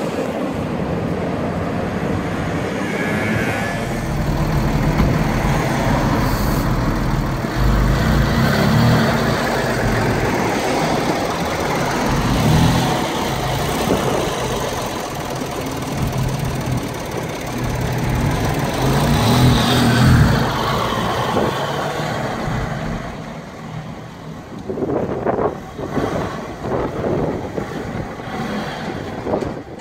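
Car engines running and revving on a city street, with a Porsche 911's flat-six close by the loudest, revving up through the middle. The sound grows quieter and more broken after about three quarters of the way through.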